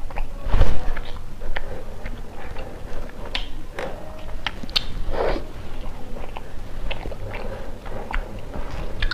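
Close-miked chewing and wet mouth clicks of someone eating a soft bun with chocolate cream filling, with a louder soft thump about half a second in. Around the middle the soft bread is pulled and torn apart.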